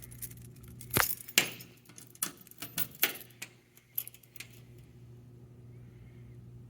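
A quick run of sharp metallic clicks and clinks, like keys or small hardware being handled, over a steady low electrical hum. The clicks stop about halfway through, leaving only the hum.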